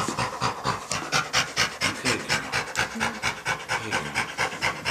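Black Labrador retriever panting rapidly, about six quick breaths a second, without a break.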